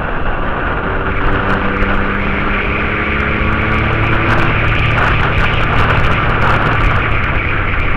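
Motorcycle engine running steadily under load while climbing, heard under strong wind noise on the microphone. A higher engine tone holds for the first few seconds, then a deeper engine drone takes over about four seconds in.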